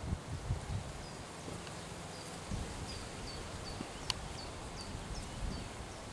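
A horse's hooves thumping on grass turf, irregular and low, over a steady outdoor hiss. From about a second in a bird repeats a short, high, downward chirp about two to three times a second, and there is one sharp click about four seconds in.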